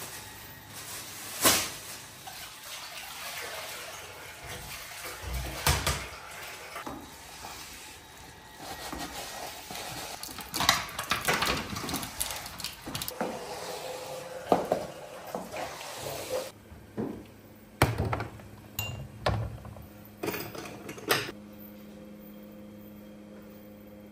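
Tap water running into a kitchen sink while things are washed by hand, with clinks and knocks of dishes against the sink. After about sixteen seconds the water stops, a few more knocks follow, and a steady low hum is left near the end.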